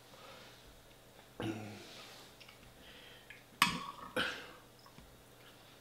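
A short, low throat sound from a man at the table about one and a half seconds in, then two sharp sounds about half a second apart as he digs a metal fork into food on a china plate.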